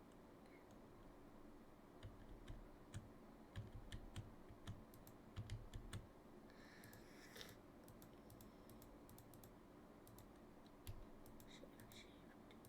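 Faint computer keyboard keystrokes and mouse clicks at an irregular pace, over a low steady hum.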